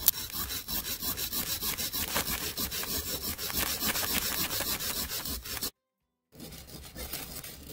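A plastic digging tool scraping and chipping at a plaster block in quick, repeated strokes, several a second, digging for a buried toy dinosaur skeleton. About six seconds in the sound cuts out briefly, then fainter scraping goes on.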